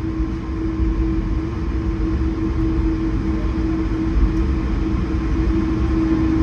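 Steady airliner cabin noise inside an Airbus A220-100: a low rumble with one constant hum running through it.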